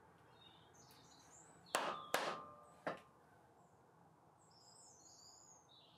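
Three blows of a rawhide mallet on the hub of a cast iron bandsaw wheel, tapping the tight-fitting shaft and bearings into place; the first two are the loudest, and the metal rings briefly after them.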